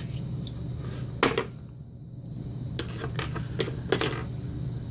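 Small metal parts clicking and clinking as a Sargent key-in-knob lock cylinder is taken apart with a plug follower: one sharp click about a second in, then a run of lighter clinks near the end.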